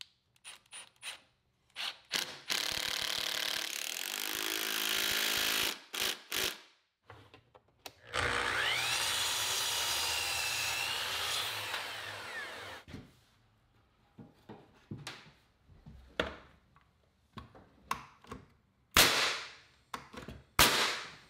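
A drill drives a Tapcon masonry screw through the wooden sole plate into the concrete, its motor running for about four seconds with a rising whine. Then a miter saw spins up and cuts through a block of framing lumber for about four seconds, followed by scattered knocks and two sharp, loud shots from a pneumatic framing nailer near the end.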